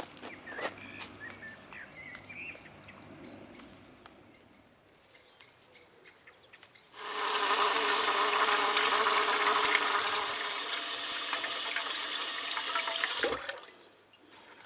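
Tap water running steadily for about six seconds, starting abruptly about halfway through and shut off sharply near the end. Before it, a few faint light clicks and short chirps.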